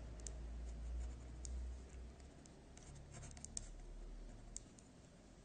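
Pen scratching faintly on paper while drawing a straight line and an arrowhead, with a few light ticks as the pen touches down and lifts.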